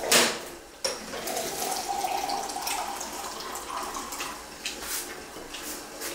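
Fingers mixing and squeezing wet rice on a plate, small wet squelches and clicks close to the microphone, after a brief loud rush of noise at the very start.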